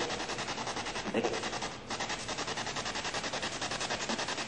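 Spirit box radio sweeping through stations: a rapid, even chatter of static chops, about ten a second, with a brief unintelligible fragment near the start.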